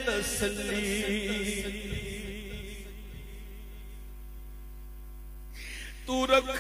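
Male voice chanting a naat (Urdu devotional poem) in a wavering, ornamented melody. About three seconds in it settles into a long held note that fades, and the chant comes back louder near the end.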